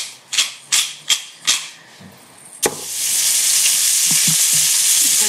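Five sharp knocks in the kitchen, about two a second. Then, a little after halfway, a clack and a loud steady sizzle as food starts frying in a hot pan.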